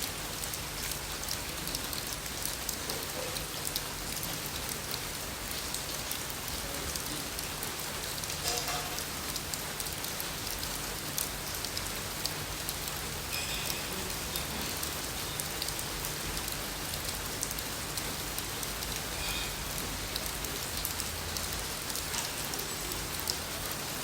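Steady rain falling: a dense, even hiss with many small sharp drop taps scattered through it, and a faint low hum underneath.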